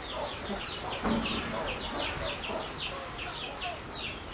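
Birds chirping: a steady run of short, high, falling chirps, about three or four a second.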